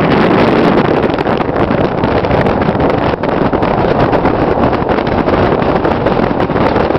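Loud, steady wind rushing over the microphone of a camera moving along a road, mixed with vehicle and road noise.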